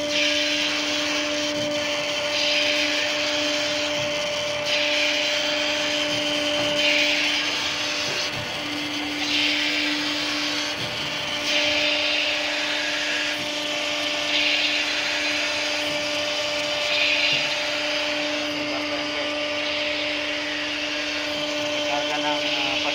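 Ship's deck winch running under its electric motor: a steady machine hum, with a higher rushing whir that swells and fades every second or two as it works.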